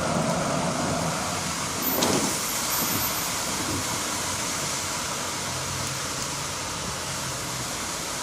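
Steady wash of road traffic on a wet four-lane street, mixed with water pouring off a retaining wall onto the pavement. About two seconds in, a vehicle goes past, its sound falling in pitch as it passes.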